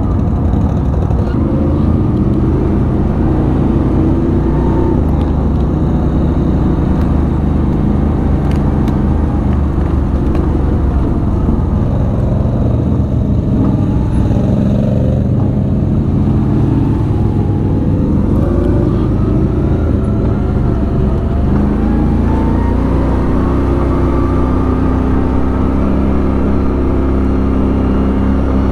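ATV engine running under way, its pitch rising and falling gently with the throttle.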